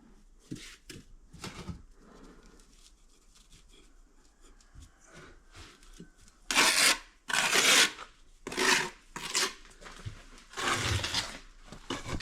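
Rough scraping in brick-and-clay masonry work: a few faint scrapes, then about five loud rasping strokes from about halfway through, each under a second long.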